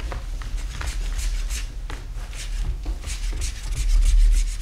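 A 5 mm plexiglass scraper scraping still-warm wax off a ski base in quick repeated strokes, about four or five a second. It is a hot scrape, lifting the softened cleaning wax and the dirt it has drawn out of the base.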